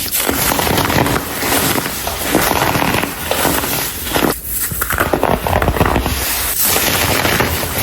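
Dried chunks of dyed baking soda being crushed and crumbled by hand, a dense run of crunching and crackling with a brief lull just past halfway.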